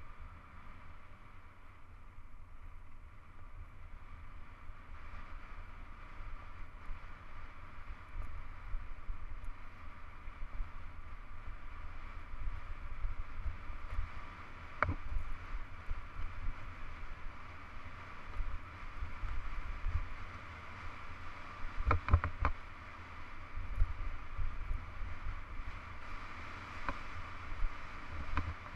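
Hardtail mountain bike rolling fast down a dirt road: wind rumbling on the camera microphone over a steady tyre noise on the gravel. A sharp knock comes about halfway through, and a quick cluster of clicks comes about three quarters of the way in.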